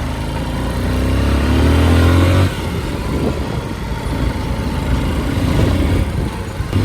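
Motorcycle engine accelerating, its pitch rising for about two and a half seconds, then dropping off suddenly and running on at lower revs with an uneven, rough sound.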